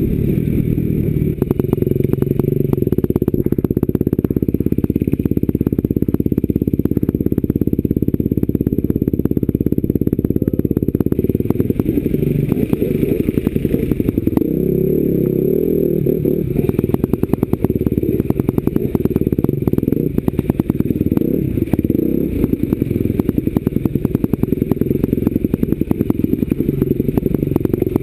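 Enduro motorcycle engine running, its pitch rising and falling with the throttle as the bike is ridden over rough ground, with a steady run of clicks and knocks that grows denser after about 16 seconds.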